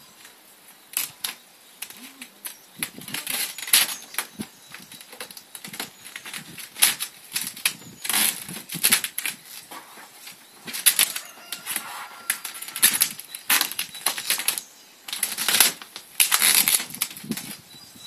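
Vinyl car-wrap film crackling and rustling in irregular bursts as it is handled, stretched and pressed onto a car door by hand.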